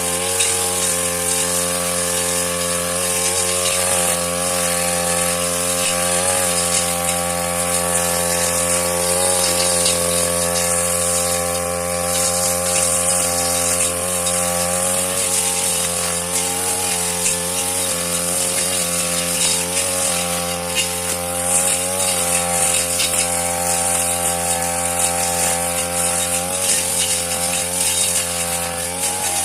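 Petrol grass cutter's small engine running steadily at high speed, its pitch wavering slightly every few seconds as the blade works through grass.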